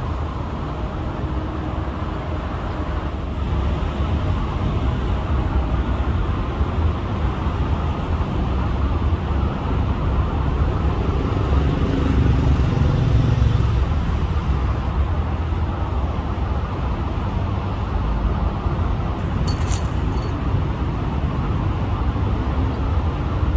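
Steady low rumbling outdoor background noise with no clear individual source, and a brief faint high-pitched tick about twenty seconds in.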